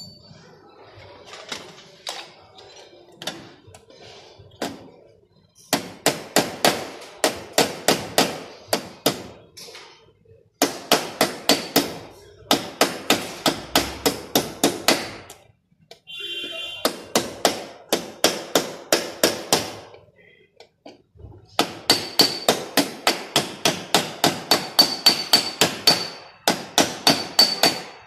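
Small hammer tapping on a car's sheet-metal body panel to work out a dent without repainting. It strikes in quick, light, even runs of about four taps a second, starting a few seconds in, with short pauses between runs.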